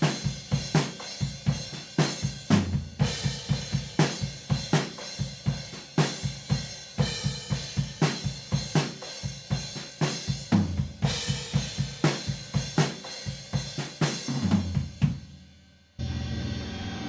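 Drum kit playing a halftime breakdown groove, with kick, hi-hat and cymbals and the snare landing on beat 3. The groove fades out, and near the end a different, steady sound with held tones comes in.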